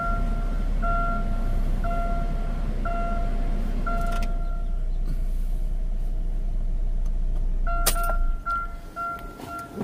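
A 2009 Chevy Cobalt's four-cylinder engine idles steadily just after starting, while the door-ajar warning chime beeps about once every three-quarters of a second. The chime stops for a few seconds midway and then starts again. About eight seconds in there is a click, and the engine sound stops.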